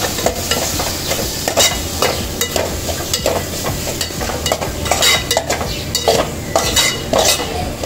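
A spatula stirring and scraping fried onion-tomato masala with spice powders around a metal pot, with hot oil sizzling underneath; irregular scrapes and light clacks against the pot, several a second.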